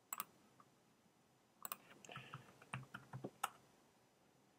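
Faint computer input sounds: two quick clicks at the start, then a short run of keyboard keystrokes from under two seconds in, ending about three and a half seconds in with one sharper key press.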